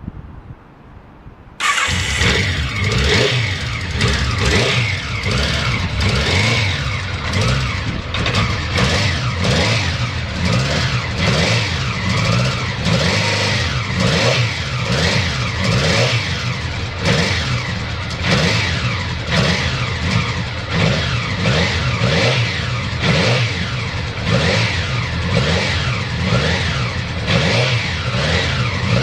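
Honda CBX650 air-cooled inline-four motorcycle engine starting abruptly about two seconds in, then running steadily with an even pulsing beat and no abnormal noise.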